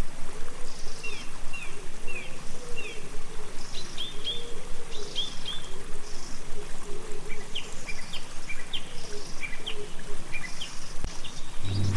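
Small birds chirping in many short, quick falling notes over the steady rush of running water.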